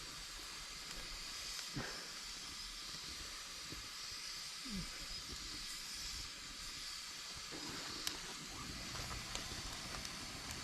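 Campfire burning with a steady hiss, with a couple of faint pops from the burning wood.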